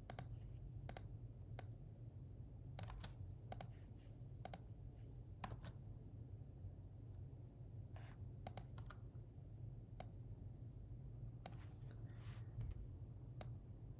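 Scattered computer keyboard keystrokes and clicks at an irregular, unhurried pace, over a faint steady low hum.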